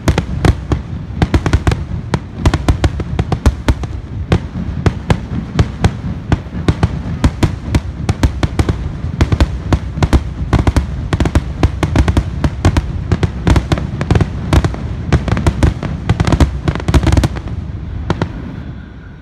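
Fireworks finale: a rapid, continuous barrage of aerial shell bursts, several bangs a second over a heavy rumble. The bangs stop near the end, leaving a fading rumble.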